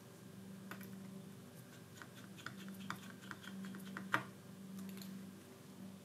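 Small irregular clicks and ticks of a precision screwdriver and tiny screws being driven into a tablet's metal bracket, the loudest click about four seconds in, over a faint steady hum.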